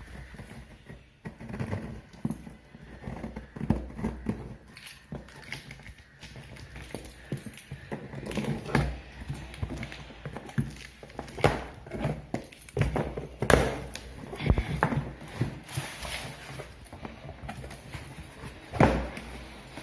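Packaging and boxed equipment being handled during an unboxing: irregular knocks, taps and thumps with some rustling. The two loudest knocks come past the middle and just before the end.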